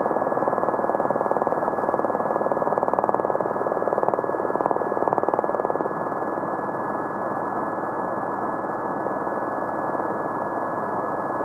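Formula One car engine running at high revs, heard muffled through narrow-band broadcast audio, with a steady thin whistle-like tone over it.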